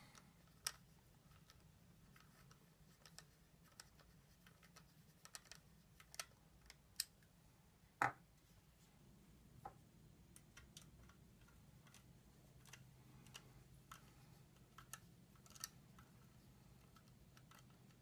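Mostly near silence with sparse, faint small clicks and ticks of a small Torx T6 screwdriver turning metal standoff mounting posts into a Samsung 840 Evo SSD's case, one sharper click with a short ring about eight seconds in. A faint low hum runs underneath.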